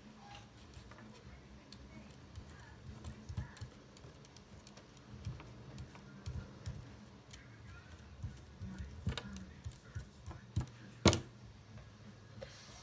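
Scattered light taps and rustles of paper and lace being handled and pressed down by hand on a craft table, with a sharper click about eleven seconds in, over a low steady hum.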